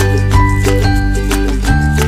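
Upbeat background music, plucked notes over a steady bass.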